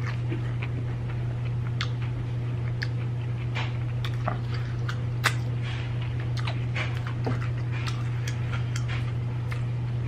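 Close-up eating sounds: a person chewing food with scattered wet mouth clicks and smacks, over a steady low hum.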